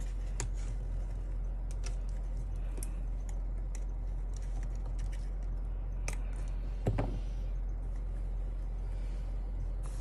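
Scattered clicks of keys being pressed on a Filco Minila R mechanical keyboard fitted with Glorious Panda switches, over a steady low hum. There is one louder knock about seven seconds in.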